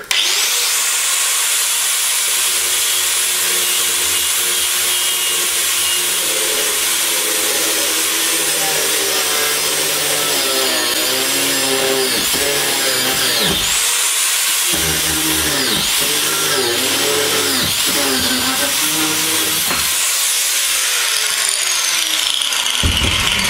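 Angle grinder with a cutting disc cutting through steel round bar. It spins up at the start to a steady high whine, which wavers and drops in pitch as the disc bites into the bar, and winds down near the end.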